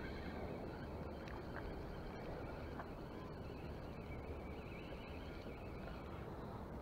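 Steady low rumble of background noise, with a faint, even high whir from a spinning fishing reel being cranked that stops near the end as a small fish is lifted from the water.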